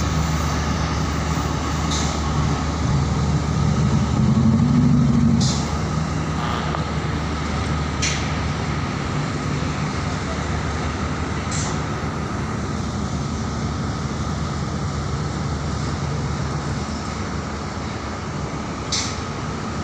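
Steady low drone of a ship's engines and machinery running as the vessel moves slowly; it swells briefly a few seconds in.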